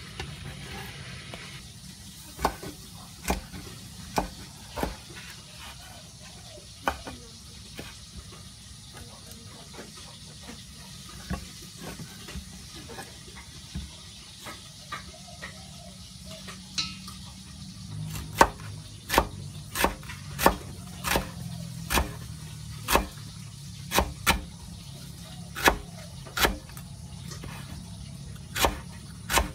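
Kitchen knife chopping banana blossom peelings into thin strips on a wooden chopping board: sharp knocks of the blade hitting the board, a few scattered at first, then a steady run of about one chop a second from around two-thirds of the way in, over a steady low hum.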